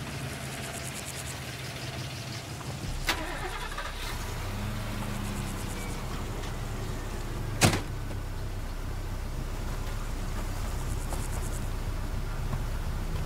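A car engine running steadily, with two sharp knocks, one about three seconds in and a louder one a little past halfway.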